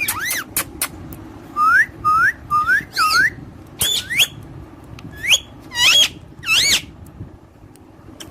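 A pet parrot whistling a string of about ten short, swooping whistles that rise and fall, with a couple of sharp clicks near the start; the whistling stops about a second before the end.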